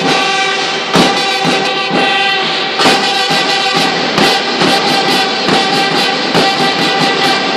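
School band playing: held, many-harmonic melody notes over drum strikes that come roughly once a second.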